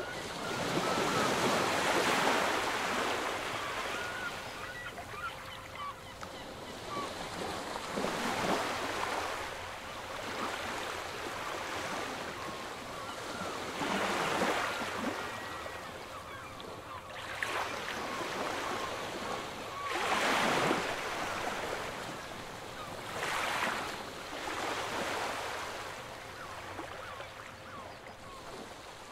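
Sea waves washing in and breaking, the rush swelling and falling every few seconds, with faint short bird calls scattered through it.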